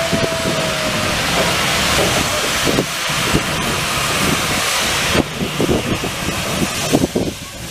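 Steam locomotive venting steam from low beside its wheels in a loud, steady hiss that drops away about five seconds in, with scattered knocks and clanks underneath. A brief thin squeal sounds at the very start.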